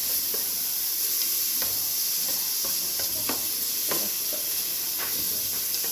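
Chopped onion and garlic sizzling in olive oil in an aluminium pot, with a spatula scraping the pot bottom in irregular strokes as it is stirred.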